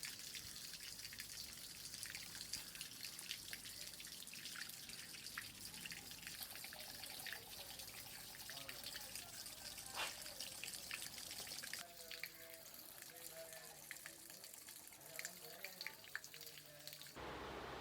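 Water running and splashing, with many small drips and ticks.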